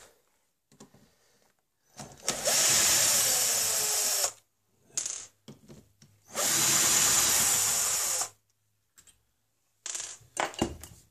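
Handheld power drill running in two bursts of about two seconds each, drilling into the butt of a wooden gunstock. Short handling clicks come between and after the bursts.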